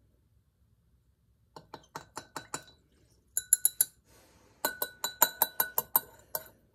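Thin metal spatula clinking against the inside of a 250 mL Pyrex glass beaker while stirring the baking soda and vinegar solution, to free the last bubbles of carbon dioxide. The clinks start about a second and a half in, in three quick runs of ringing taps with short pauses between them.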